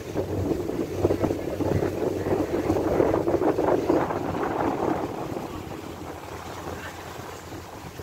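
Moving passenger boat's engine running under a rush of water and wind buffeting the microphone, the noise easing off about five seconds in.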